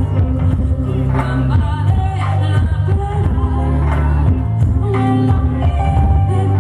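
Live band playing a song with a singer, over a strong, steady low bass line.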